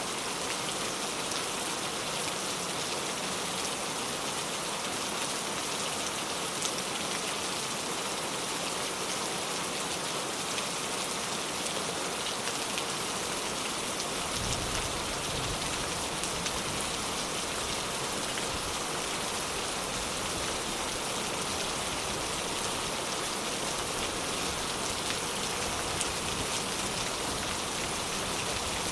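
Steady rain falling, a dense hiss of drops on surfaces. About halfway through, a low rumble of distant thunder sets in underneath and keeps going.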